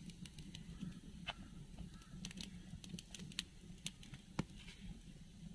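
Faint, scattered sharp clicks and crackles at irregular intervals over a low steady hum.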